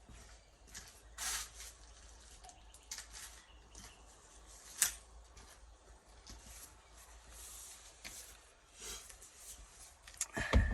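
Scattered light clicks and rubbing from hands and tools working at a car's steering column. There is a sharp click about five seconds in and a louder thump near the end.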